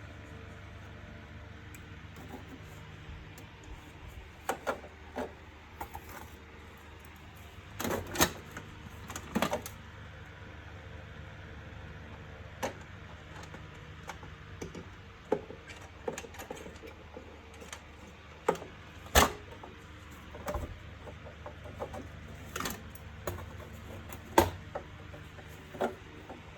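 Irregular clicks and knocks of a Bosch wet & dry vacuum cleaner's parts being handled and fitted together during assembly, over a steady low hum.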